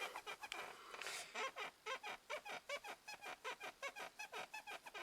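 Ford Focus 3 driver's seat squeaking in a fast run of short, high squeaks, about four a second, as it rocks under the occupant: a seat fault in a nearly new car.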